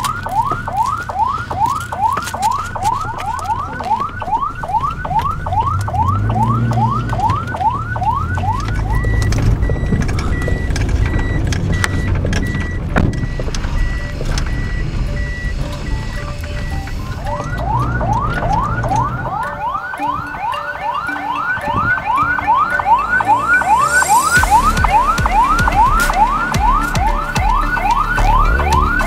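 Ambulance electronic siren in a fast yelp: rising sweeps, about three a second. It drops out for about nine seconds while a high electronic beep repeats about twice a second, then comes back and runs on.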